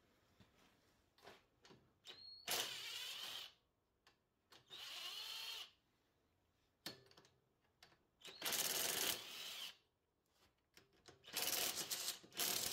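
Ryobi cordless drill/driver with a long socket extension spinning out the valve cover bolts on a riding mower's engine, in four short runs of about a second each.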